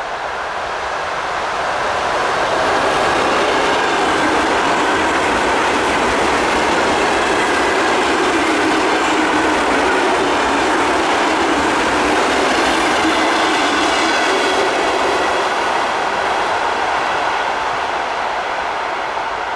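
ЭД4М electric multiple unit rolling past on the rails. The noise of wheels and cars builds over the first few seconds, holds steady and loud, then eases off near the end.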